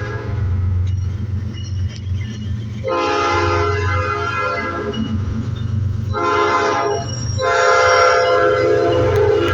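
Diesel locomotive horn sounding a chord of several notes in separate blasts: the tail of one blast just at the start, a long blast about three seconds in, a short one about six seconds in, and another long one from about seven and a half seconds on, the pattern of a grade-crossing signal. A steady low engine rumble runs underneath.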